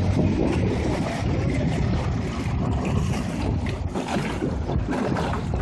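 Wind buffeting the microphone over the rush of water past a moving coaching launch, a steady low rumble.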